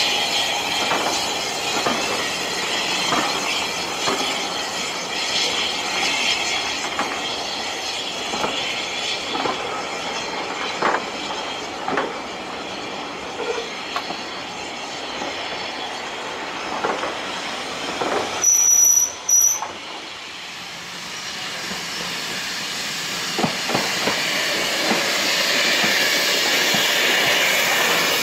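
Passenger coaches of a steam-hauled train rolling past, wheels clicking over the rail joints about once a second with some squeal and a steady rumble and hiss. About two-thirds of the way in, a high-pitched whistle sounds twice briefly.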